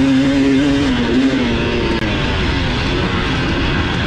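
Dirt bike engine under throttle, holding a steady note, then dropping in pitch and breaking up about two seconds in as the throttle eases, over a steady rushing noise.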